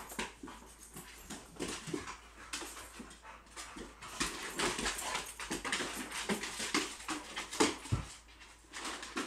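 Boxer and pit bull puppy play-fighting: a quick, irregular run of dog scuffles and paw scrabbles on a hardwood floor, with a heavier thump about eight seconds in.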